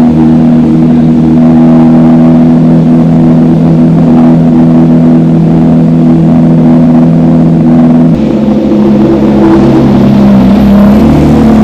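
Porsche race car engines running at low revs in the pit lane, a steady even note that changes about eight seconds in and rises a little as a car pulls up close.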